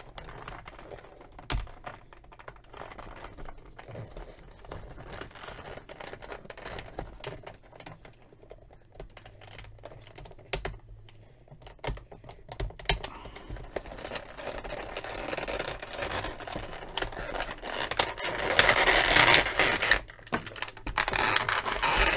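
Gloved hands handling a plastic action figure in its cardboard box with a clear plastic tray: scattered small clicks and scratches as the twist ties are worked loose. Denser, louder plastic rustling and crinkling builds in the second half, loudest about three seconds from the end, as the figure is pulled free of the tray.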